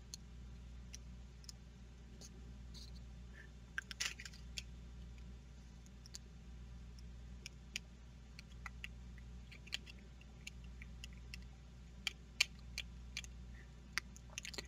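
Small screwdriver turning the bottom-cover screw into a Shimano 105 ST-5800 shifter: faint, scattered clicks and scrapes over a low steady hum.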